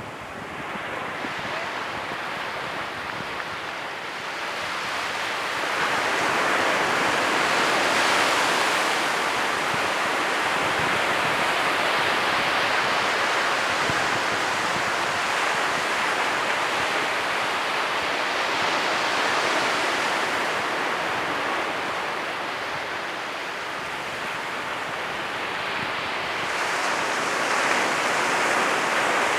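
Ocean surf: waves breaking and washing up the shore in a continuous rushing hiss. It swells about a fifth of the way in, eases off past the middle and builds again near the end.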